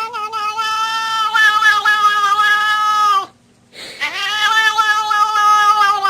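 A cat yowling: two long, drawn-out calls of nearly even pitch, the second beginning just after the first stops about halfway through.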